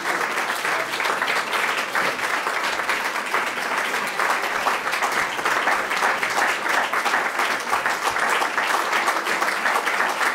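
Audience applauding: a roomful of people clapping steadily and densely.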